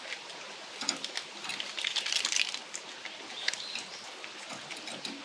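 Pork cooking on a charcoal grill's wire grate, a steady hiss broken by scattered small pops and clicks of metal tongs on the grate. Birds call briefly from the surrounding trees, a couple of times in the middle.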